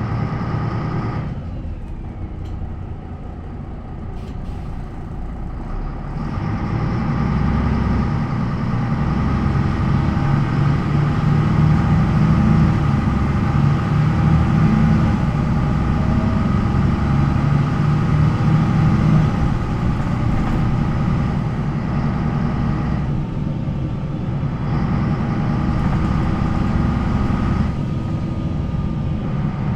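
MAN NL 263 city bus's D28 diesel engine, driving through a ZF Ecomat automatic gearbox. The engine eases off about a second in, then grows louder from about six seconds in and keeps running hard, with brief drops in level later on.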